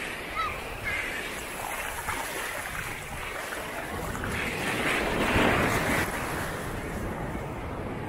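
Surf washing onto a sandy shore, with wind buffeting the microphone; the wash swells louder about halfway through.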